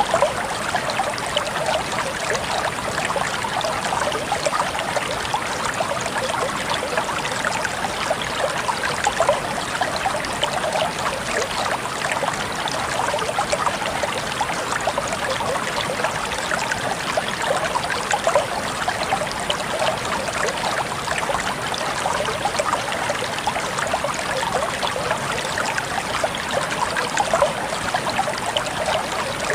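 Water running and trickling steadily, with a continuous splashing babble and no letup.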